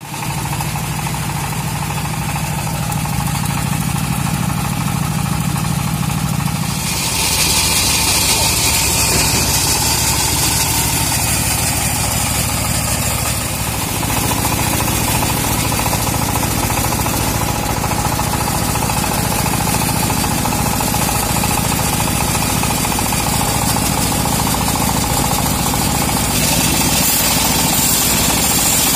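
The engine of a homemade bandsaw mill runs steadily, driving the band blade. About seven seconds in the sound gets louder and a steady hiss joins in. Near the end the blade is sawing into a teak log.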